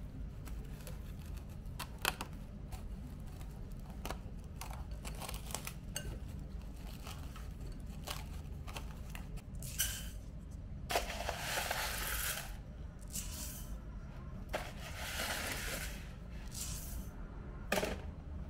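Dry rice grains poured from a small bowl into a pot: two rushing, pattering pours in the second half, after scattered small clicks and knocks of handling. A low steady hum runs underneath.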